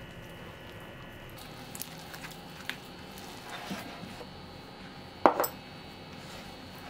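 A hand kneading flour into soft, sticky yeast dough in a glass bowl: quiet squishing and rubbing, with a few light ticks and one sharp clink against the bowl about five seconds in.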